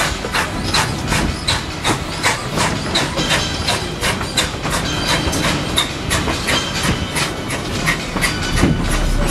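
Tweetsie Railroad passenger train rolling along, with a steady rhythm of sharp clicks, about two and a half a second, over a low rumble.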